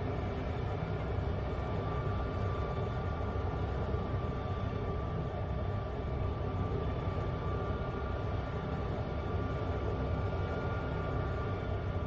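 Air ambulance helicopter running on the ground: a steady high turbine whine over a low rumble, unchanging throughout.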